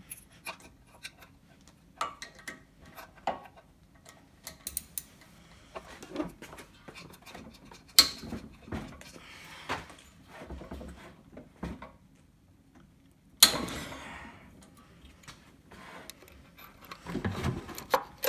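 Irregular clicks and clinks of hand tools on the metal of a small engine's crankcase as someone works at the governor arm's retainer clip. Two sharp metallic knocks stand out, about 8 seconds and 13 seconds in, the second ringing briefly.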